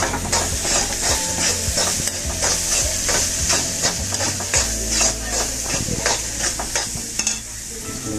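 Sliced onions and red chilli powder sizzling in an iron kadai while a metal spoon stirs them, with a steady frying hiss and repeated scrapes of the spoon against the pan, a few each second. The scraping eases near the end.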